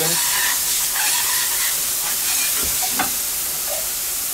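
Beef burger patties sizzling on a flat-top griddle, a steady frying hiss, with a short knock about three seconds in.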